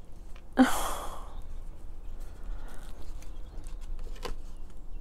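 A woman's long, breathy sigh out, starting about half a second in, followed by low room noise and a faint click near the end.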